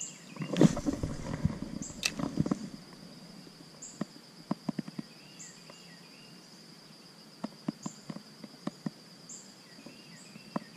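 Creekside ambience: a steady high insect buzz with short chirps from birds, under scattered clicks and rustles from a spinning rod and reel being handled while casting and retrieving a spinner. The handling noise is loudest in the first couple of seconds.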